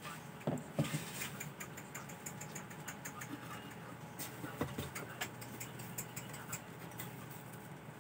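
Hands handling the wiring and metal terminals inside an opened rice cooker base: scattered small clicks, taps and rustles, with a few louder knocks near the start and one about four and a half seconds in.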